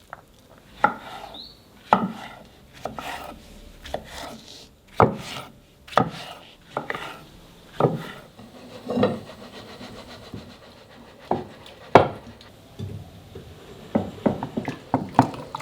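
A series of irregular knocks and thuds, roughly one a second, with a quicker cluster near the end.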